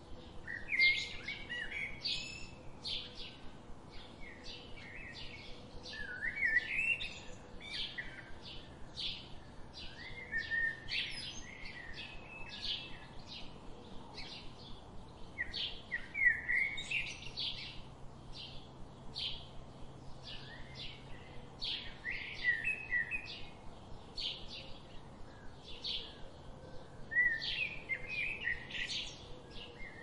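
Songbirds chirping and singing: a steady run of short, high chirps several times a second, with a louder warbling phrase every five or six seconds.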